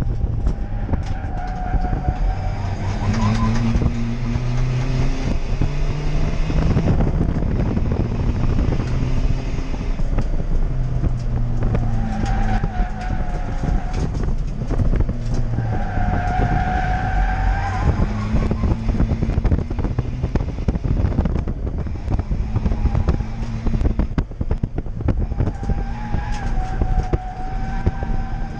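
Toyota Yaris D-4D turbodiesel engine heard from inside the stripped race car's cabin, its pitch repeatedly climbing under hard acceleration and dropping through gear changes and braking, with rattles from the bare shell. Several times the tyres squeal for a second or two through corners.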